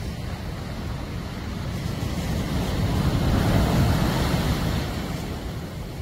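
Sea waves washing over a rocky shore, one surge swelling to its loudest around the middle and then falling away.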